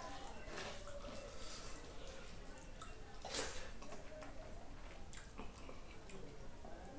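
A hand squishing and mixing curd rice on a steel plate: soft wet squelches and scrapes, with one louder squish about three seconds in.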